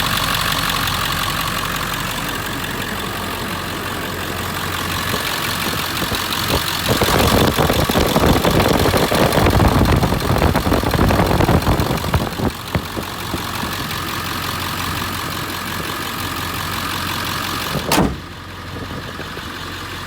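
The 7.3-litre Power Stroke V8 turbo-diesel of a 2000 Ford F-250 idling steadily, warmed up after about half an hour of running. A single sharp bang comes near the end, after which the engine sounds quieter.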